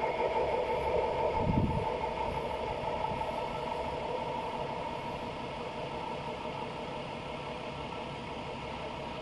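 Freight train moving away along the track, the rumble of its wagons on the rails fading steadily. A brief low thump comes about a second and a half in.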